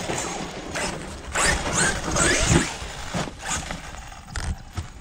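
Electric RC monster truck's motor whining up in short, repeated bursts as it accelerates away over dirt, with knocks and crunches from the chassis and tyres.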